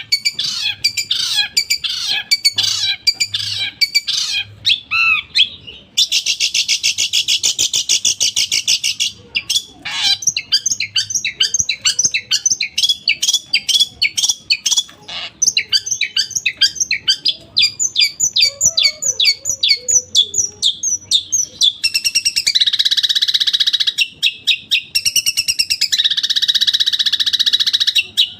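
Long-tailed shrike singing a fast mimicry song: rapid runs of sharp high chirps and trills. A dense harsh buzzing stretch comes about six seconds in, and loud harsh grating calls fill the last several seconds.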